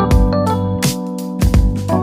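Background music with a steady beat: keyboard chords over a bass line with regular drum hits.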